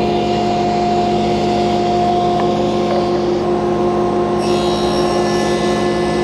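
SawStop table saw running steadily with a steady hum, its blade raised 1/8 inch to make a shallow scoring cut in a medium density fiberboard (MDF) panel fed along the fence. The cutting noise turns brighter about four and a half seconds in.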